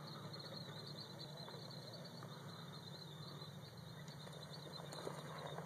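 Faint, steady low rumble of an off-road crawler's engine idling.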